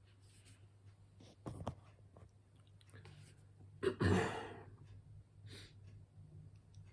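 A person lets out one short breathy sigh close to the microphone, a couple of seconds after a pair of faint clicks, over a low steady hum.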